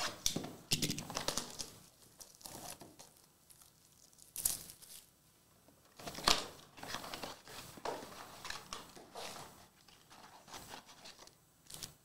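Plastic shrink wrap crinkling and tearing as a sealed trading-card blaster box is cut open and its foil packs handled. The sound comes in irregular crackly bursts, loudest a little after four seconds and again about six seconds in.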